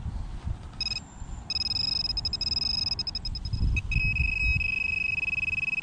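Handheld metal-detecting pinpointer sounding its electronic alert as its tip probes the loose soil, signalling metal close to the tip. The tone pulses rapidly about a second in and then holds steady. Near the end it shifts slightly lower and breaks into quick pulses. Soil and grass are being handled underneath.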